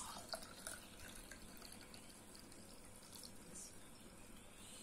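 Water poured from a steel pot into a drinking glass: splashing at first, fading within about a second to a faint trickle as the glass fills.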